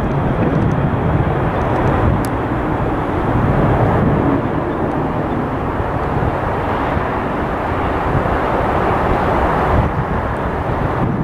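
Jet airliner engines, a loud steady rush that grows brighter about seven seconds in and eases off near the end.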